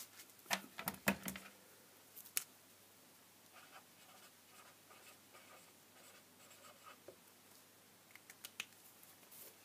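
Pen writing on paper: faint scratching strokes, with a few sharp clicks and taps at the start and near the end.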